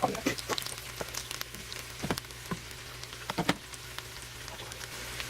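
Potato latkes frying in a pan of hot oil: a steady sizzle with irregular sharp pops and crackles, over a low steady hum.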